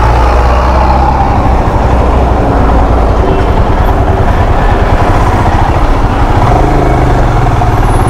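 Royal Enfield Himalayan's single-cylinder engine running steadily at road speed, with wind rushing over the microphone.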